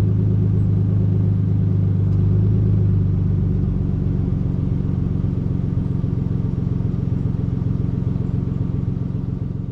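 2007 Ford Ranger FX4's 4.0-litre V6 engine running at a steady speed, fading out near the end.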